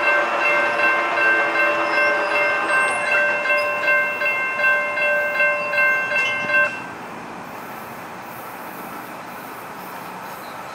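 Railroad grade-crossing warning bell ringing steadily at about two strokes a second for about seven seconds, then stopping abruptly.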